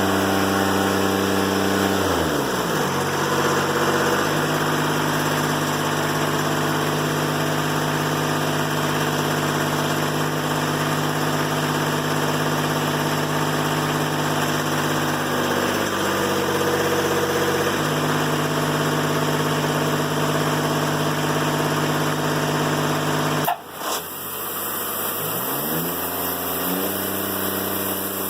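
Diesel engine of a Timberking 1400 bandsaw mill running through a cut in a poplar log. Its pitch falls about two seconds in and holds steady; near the end it dips sharply and then climbs back up.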